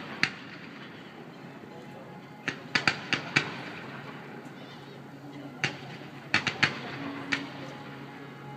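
Fireworks going off: about a dozen sharp bangs and cracks in irregular clusters, some with a short echoing tail.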